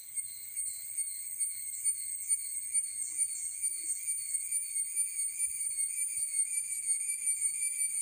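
Insects calling in a steady, high-pitched chorus that pulses a few times a second and gets louder over the first second or so.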